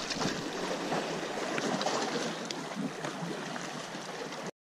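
Small sea waves washing and splashing against shoreline rocks: a steady watery hiss with a few faint clicks, cutting off suddenly near the end.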